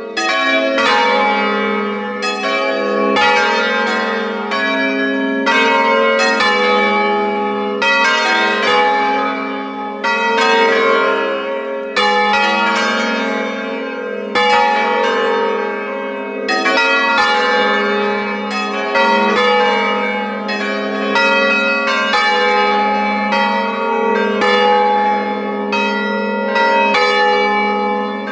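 A five-bell peal of swinging church bells in A-flat, cast by Giorgio Pruneri in 1907, heard close up from inside the bell chamber. Strikes come in a steady run about once a second, each ringing on over the next.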